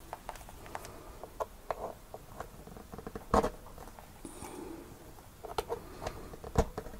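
Test-lead banana plugs being pushed into a multimeter's input jacks: a run of small plastic handling clicks and rustle, with two sharp clicks, one a little over three seconds in and one near the end, as each plug seats in its socket.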